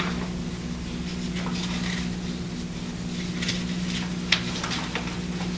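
Quiet room tone with a steady low electrical hum, broken by a few faint clicks and paper rustles.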